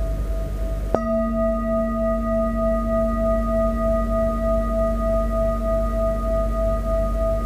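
Metal singing bowl ringing with a pulsing, wavering tone, then struck with a mallet about a second in. The strike brings in a deep hum and higher overtones that sustain steadily with the first tone.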